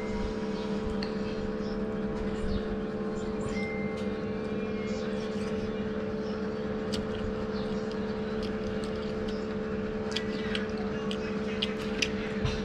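A person eating by hand: chewing and mouth smacks with small clicks of fingers and a spoon at the plate, busier near the end, over a steady motor hum.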